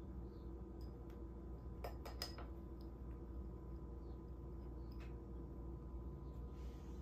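Faint light clicks of a bottle cap being pawed by a cat, a quick cluster of three or four about two seconds in and a single one near five seconds, over a steady low room hum.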